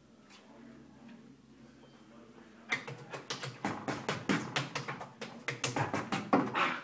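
A quick, irregular run of sharp taps and clicks, several a second, starting about two and a half seconds in after a quiet stretch.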